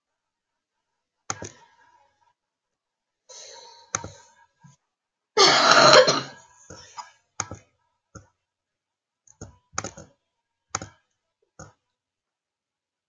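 Computer mouse clicks, a handful of sharp single clicks spread out, with a loud cough-like throat clearing from a person about five and a half seconds in.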